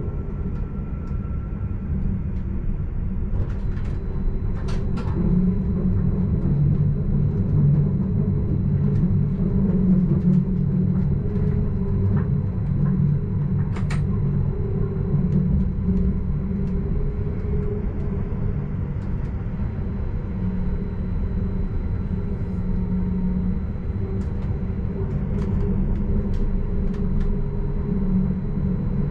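Stadler RABe 515 'Mutz' electric multiple unit running at speed, heard from the driver's cab: a steady low rumble of wheels on track with an even drive hum. A couple of sharp clicks, about five seconds in and again near the middle.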